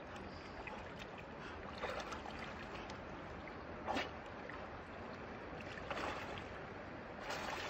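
Steady rush of a flowing mountain river, broken by a few brief splashes from a person swimming in the water.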